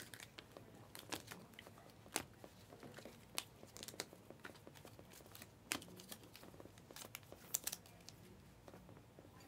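Stiff chromium trading cards being flipped through by hand: faint slides and scattered sharp clicks as each card is moved across the stack.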